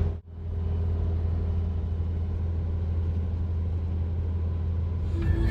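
Steady low road rumble and engine hum heard from inside a moving vehicle. Music comes in near the end.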